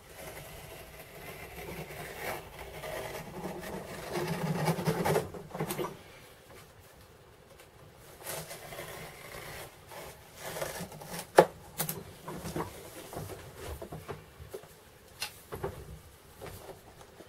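A small hand-held blade drawn along an aluminium ruler, slicing through thick 8–9 oz leather with a scraping drag, longest and loudest in the first six seconds. After it come scattered clicks and knocks as the ruler and leather are handled, with a sharp click a little past the middle the loudest.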